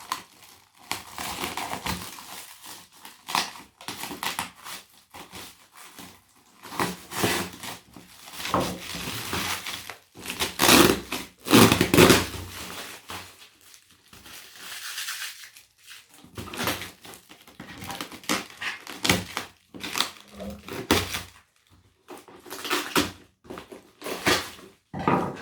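A cardboard shoebox parcel being opened by hand: irregular rustling, scraping and crinkling of cardboard and packing material, loudest about halfway through.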